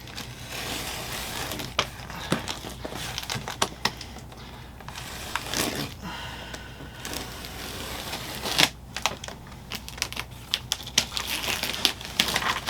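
Cardboard shipping box being opened by hand: irregular clicks, scrapes and crinkling rustles of cardboard and packing.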